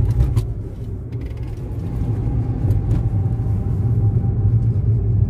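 Inside a moving car: a steady low rumble of engine and road noise, with a few faint clicks near the start.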